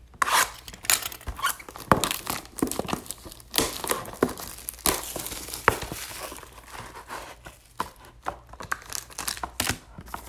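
A trading card box being torn open: irregular tearing and crinkling of its wrapping, with sharp clicks and taps of cardboard and packs being handled.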